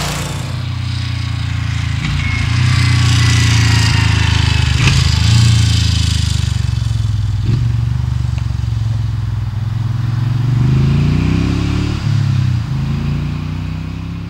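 Moto Guzzi SP1000's air-cooled V-twin engine running as the motorcycle rides past. The exhaust note rises as it revs up about ten seconds in, drops briefly, then fades toward the end as the bike pulls away.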